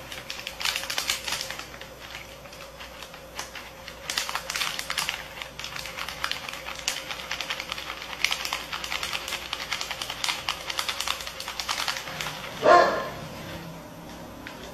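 Dried cloves trickling from a plastic packet into a plastic bottle: a rapid patter of small clicks and packet crinkling that thins out about twelve seconds in. Near the end, one loud dog bark.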